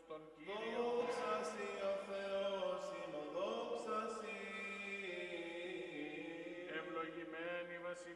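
Eastern Orthodox liturgical chanting: a voice intoning in long held notes that slowly glide up and down, beginning about half a second in.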